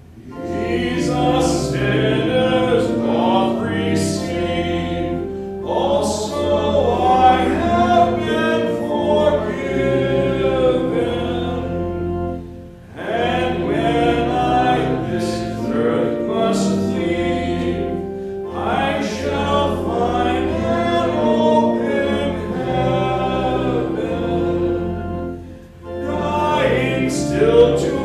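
Group of voices singing a hymn with organ accompaniment, pausing briefly between phrases about every thirteen seconds.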